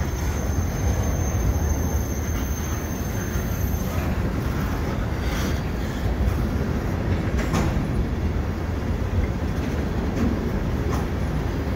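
Loaded freight cars of a long train rolling over a steel through-girder bridge: a steady low rumble with a few sharp clanks of wheels over rail joints, and a faint high wheel squeal in the first few seconds.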